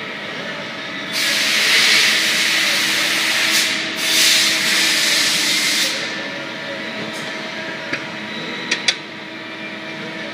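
Welding machine running with a steady hum. Two long, loud hisses come between about one and six seconds in, followed by a few sharp clicks near the end.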